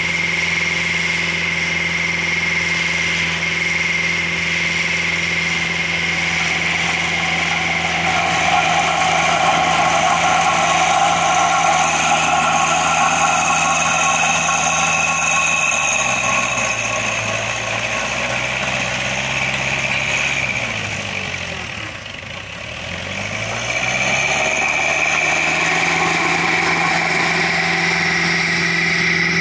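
Vermeer RTX450 riding trencher's engine running steadily with a high whine over it. About halfway through, the engine speed drops, sinks lower for a few seconds, then climbs back up and holds steady.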